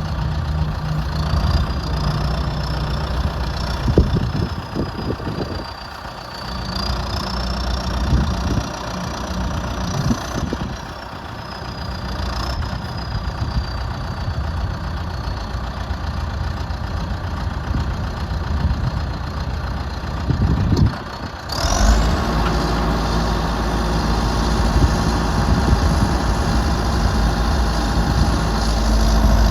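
2008 John Deere 310SJ loader backhoe's four-cylinder diesel engine running, with a thin high whine that drifts up and down in pitch. About two-thirds of the way in, the sound cuts off briefly and comes back with a heavier, louder engine note.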